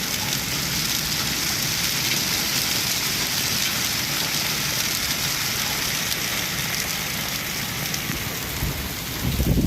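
Large hailstones pelting down in a steady, dense clatter. A low rumble swells near the end.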